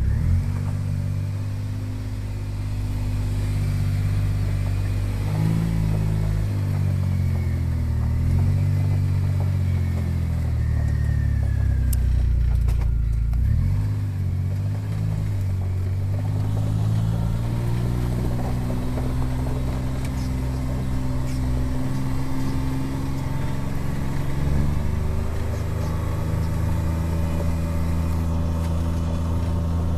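John Deere Gator 825i utility vehicle's three-cylinder gasoline engine running while the vehicle is driven, still cold from a just-completed cold start. Its pitch rises and falls with the throttle through the first half, then holds steadier with a step up late on.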